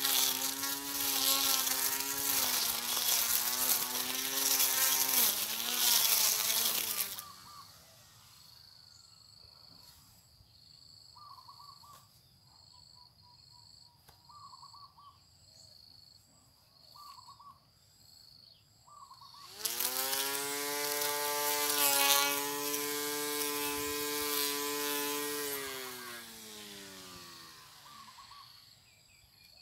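Portable battery-powered electric grass trimmer's motor running with a high whine, its pitch wavering, then switched off about seven seconds in. It starts again about twenty seconds in, spinning up quickly, runs steadily, and winds down with falling pitch near the end.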